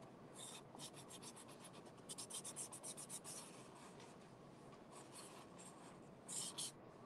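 Faint scratchy strokes of a marker drawing lines on painted corrugated cardboard, with a quick run of short strokes about two to three seconds in and a couple more near the end.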